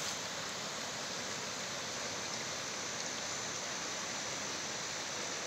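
Steady rushing of a river flowing over rocks.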